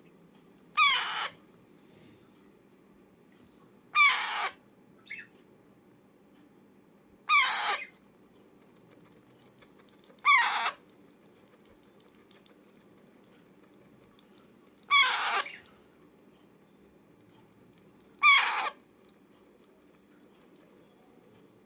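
Alexandrine parakeet giving six loud, harsh screeching calls, each about half a second long, spaced roughly three to four seconds apart.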